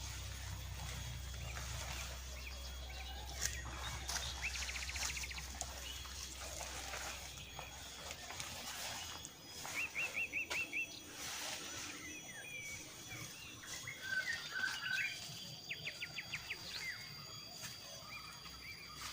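Forest ambience with birds calling: several quick runs of short, repeated high chirps, with other scattered bird notes between them. A thin, steady high tone joins near the end.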